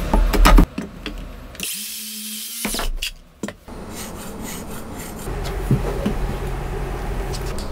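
Wooden beams and blocks handled on a workbench: a few sharp wooden knocks, then wood rubbing and sliding against wood, with light taps.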